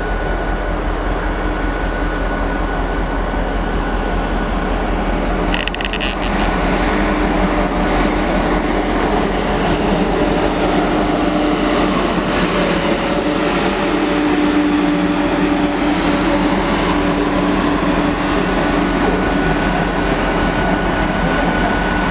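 SJ X2000 electric high-speed train running past, a steady rumble with a humming tone and a high whine. A short high squeal comes about six seconds in.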